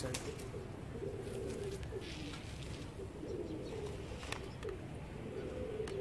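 Domestic pigeons cooing, one low rolling coo after another, with a light click or two.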